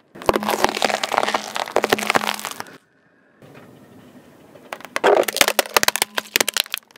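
A car tyre rolling over broccoli, the stalks and florets crunching and snapping in a dense run of cracks for about two and a half seconds. After a short lull, the tyre crushes a plastic food container, which cracks and crackles for about two seconds.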